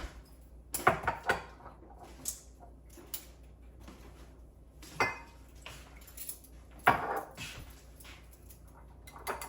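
Scattered clinks and knocks of kitchen utensils and dishes, a few sharp ones about a second in and again around seven seconds, while wet baking ingredients are handled and mixed.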